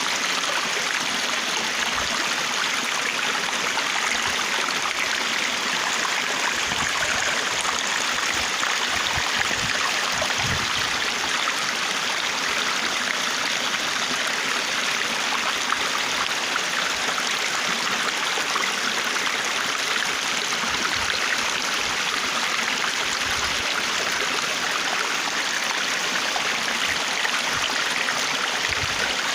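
Flowing stream water, a steady rushing hiss that holds even throughout.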